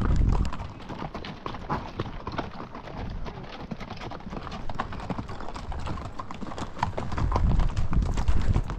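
Horse hooves striking the trail at a walk, a steady run of clip-clops under a ridden horse, with a low rumble at the start and again near the end.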